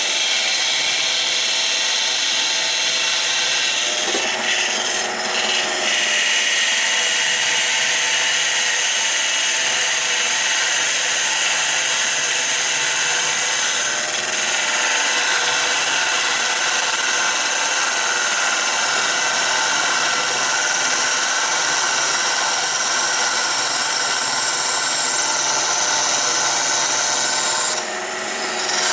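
Wood lathe running while a turning chisel cuts into the spinning wood: a steady scraping hiss over the lathe's motor hum, with a brief lull near the end.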